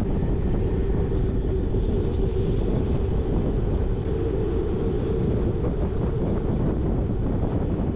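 Wind buffeting a GoPro action camera's microphone while riding a folding bicycle at speed: a steady low rumble with no break.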